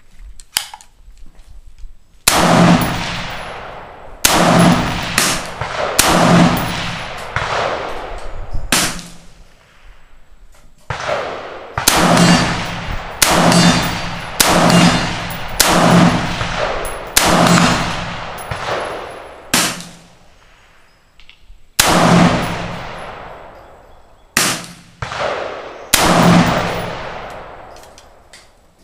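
AR-15-style rifle firing more than a dozen single shots at an uneven pace, some in quick pairs and some a few seconds apart. Each report rings out and fades slowly under the metal roof of the shooting shelter.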